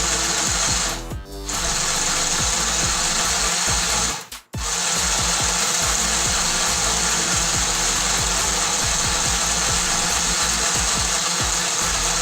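Mini electric sewing machine's motor running steadily to wind thread onto the bobbin. It stops briefly twice, about a second in and about four seconds in.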